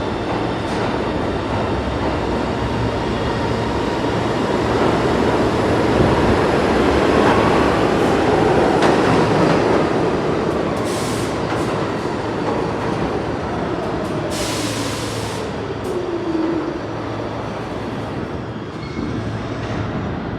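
R211T New York subway train running between stations: a steady rumble of wheels on rail, louder partway through, with whining propulsion tones that glide up and down in pitch. About fourteen seconds in there is a short burst of high hiss.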